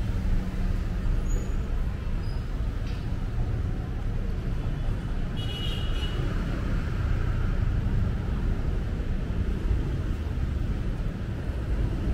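Busy street traffic: a steady rumble of passing motorbike and car engines, with a short high-pitched squeal about halfway through.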